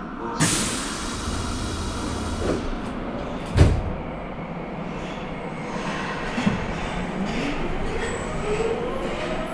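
Nagoya subway 5050 series train with Hitachi GTO-VVVF traction: a sudden burst of hiss about half a second in and a single loud clunk a few seconds later. Then the GTO-VVVF inverter whine starts and rises steadily in pitch as the train begins to accelerate.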